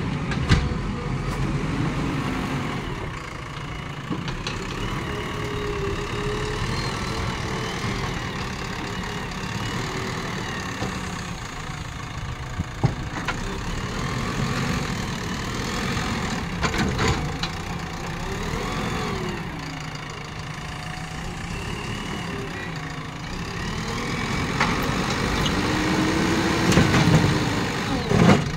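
JCB 3DX backhoe loader's diesel engine running, its pitch rising and falling several times as the machine drives and pushes soil with its front loader bucket. A few short knocks come through, about a second in, around halfway and near the end.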